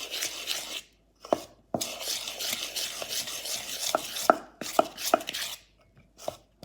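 Chickpea-flour batter being stirred in a bowl: wet scraping and churning, with several sharp clicks of the utensil against the bowl.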